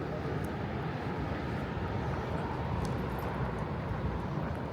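Outdoor boardwalk ambience: a steady low rumble with a faint hum and a few light ticks.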